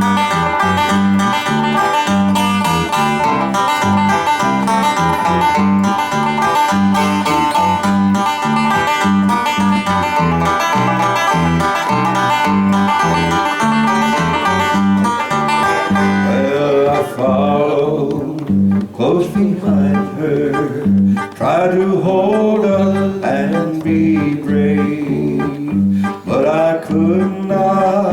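Bluegrass tune played on banjo and guitar over a steady beat. About two-thirds of the way through, the busy high picking drops away and the music carries on more sparsely.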